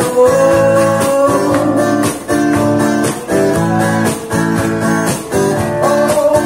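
Music: strummed guitar chords.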